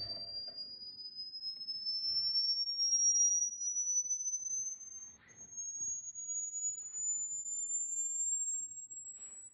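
Hearing-test sweep: a pure sine tone played through a speaker, gliding slowly and steadily upward in pitch as a high whistle that keeps getting higher, used to find the highest pitch each listener can still hear.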